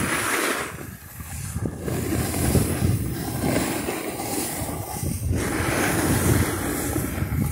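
Wind rushing over the microphone and a snowboard sliding and scraping over firm groomed snow while riding downhill, a rough, uneven noise that dips briefly about a second in.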